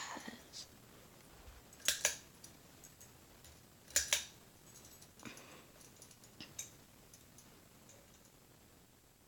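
Ceiling fan pull-chain switch pulled twice, each pull giving a sharp double click, with a few fainter clicks between.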